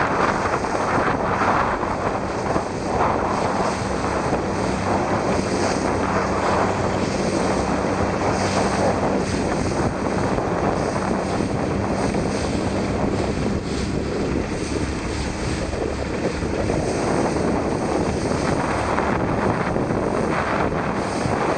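Wind buffeting the microphone over the rush and splash of choppy water. A faint steady low hum runs underneath and stops about sixteen seconds in.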